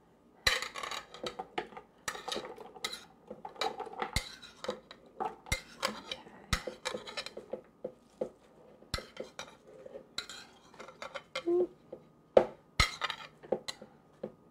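A spoon scraping and tapping against a plate as chopped tomatoes, basil and onion are pushed off it into a plastic food processor bowl: a string of irregular clinks and short scrapes.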